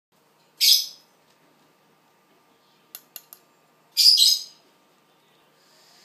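A juvenile owl gives two harsh, hissing begging screeches, about three seconds apart, during hand-feeding. Three short clicks come just before the second screech.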